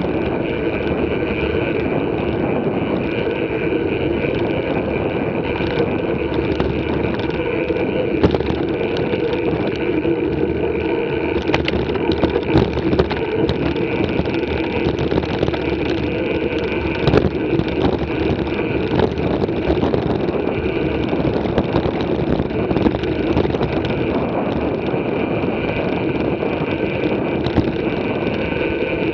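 Mountain bike rolling along a gravel dirt track: a steady rushing noise of tyres and air moving past the camera, with scattered clicks and rattles from the bike.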